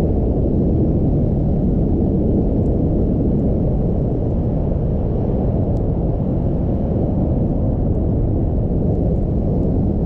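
Car driving on a snowy road: a loud, steady low rumble of tyre and engine noise.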